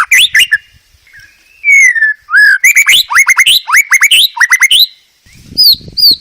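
White-rumped shama singing: loud, fast runs of whistled notes and pitch slurs, each phrase a quick string of sharp repeated notes, with short pauses about a second in and near the end.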